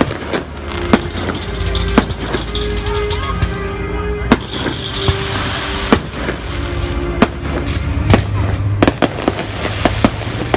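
Fireworks going off: sharp bangs about every second at uneven spacing, with a crackling burst a little past the middle, over music with long held notes.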